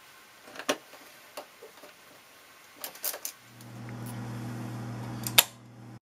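Light clicks and taps of a screwdriver fastening a wall-switch faceplate. About halfway through, a steady low hum starts, and a loud sharp click near the end cuts it off.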